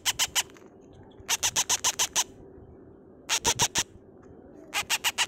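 Parrot chick's begging calls while being hand-fed from a syringe: short bursts of rapid high chirps, about eight a second, coming four times with pauses between.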